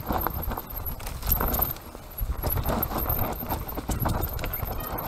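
Mountain bike riding fast down a rough dirt singletrack: tyres rumbling over the ground while the frame, chain and components rattle and knock in quick, irregular clicks.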